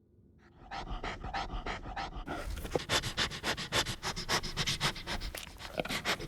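A bear sniffing and snuffling hard at close range: quick short sniffs, about four or five a second, growing louder and denser about two seconds in.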